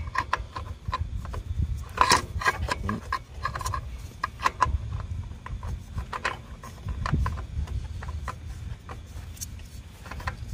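A new spin-on oil filter being turned onto a zero-turn mower engine by hand: a run of small irregular clicks, scrapes and rubbing as the metal canister and fingers work against the mount, busiest about two seconds in.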